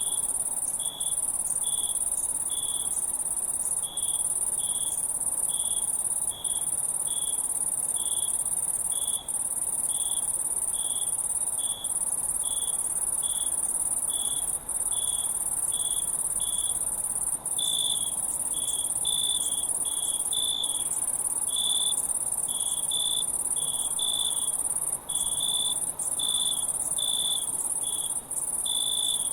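Crickets chirping: a dense, steady, high-pitched chorus with one nearer cricket chirping in a regular rhythm about twice a second, which grows louder and less even about two-thirds of the way through.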